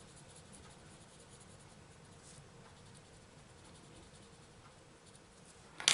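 Faint, steady scratching of a coloured pencil shading on paper.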